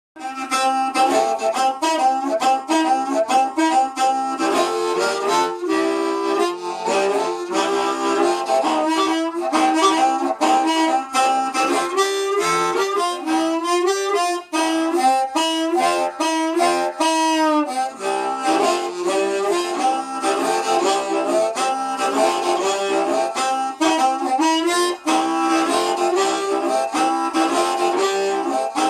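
Harmonica played solo in quick runs of notes and chords, with bent notes sliding down in pitch a little past halfway through.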